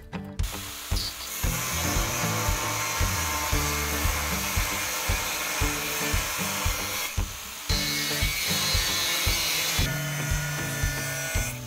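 Angle grinder cutting steel angle iron, a loud, dense hissing cut that breaks off for a moment about seven seconds in and then resumes. The end of the angle is being cut to a point.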